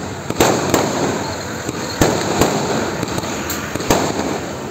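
Aerial fireworks bursting overhead: a string of sharp bangs, the loudest about half a second, two seconds and four seconds in, over a continuous crackle and hiss of more fireworks.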